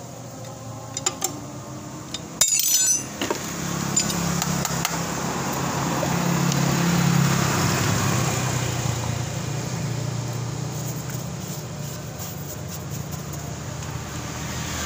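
Metal tools clinking against the scooter's CVT cover parts during reassembly, with a sharp metallic clatter about two and a half seconds in. From about three and a half seconds a steady low hum comes up, swells and slowly fades.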